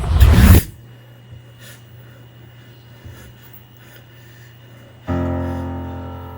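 Film soundtrack: a loud low boom that stops within the first second, a faint low hum, then a sustained piano chord struck about five seconds in and slowly dying away.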